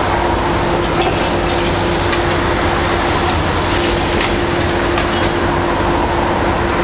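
Hitachi ZX650 demolition excavator running steadily, with a constant engine and hydraulic whine, as its crusher jaws work a concrete wall. A few faint cracks of breaking concrete and falling debris come through the drone.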